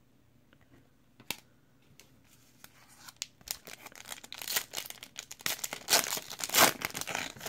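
Foil wrapper of a Donruss Optic basketball card pack being torn open and crinkled by hand: one sharp click about a second in, then crinkling and tearing that builds and is loudest near the end.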